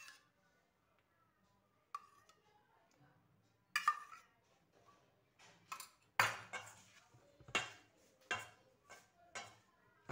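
Clinks and knocks against a stainless-steel mixing bowl as urad flour is rubbed together with ghee and milk by hand. The first clink comes about four seconds in, followed by several more in quick succession.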